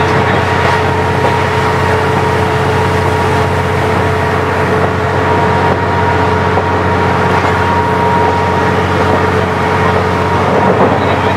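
KiHa 40 diesel railcar running along the line: a steady low engine drone with a steady high whine over it.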